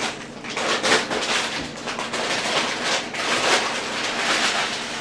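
Paper rustling and crinkling in uneven bursts, as a paper bag or wrapper is handled.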